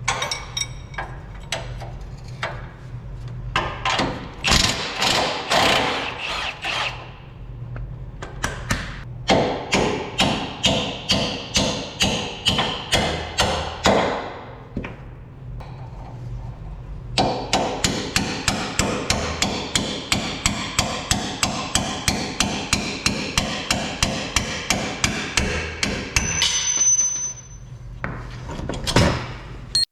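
Hammer blows on metal in long, even runs of about two to three strikes a second, pounding at the Toyota Tacoma's front suspension to free the coilover.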